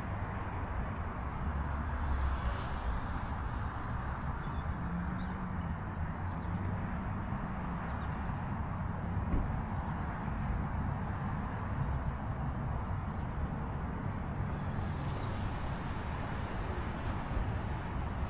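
Steady wind rumble on the microphone, with the faint high whine of a small electric RC plane motor (E-flite UMX Turbo Timber Evolution) in flight, swelling briefly twice as the plane passes.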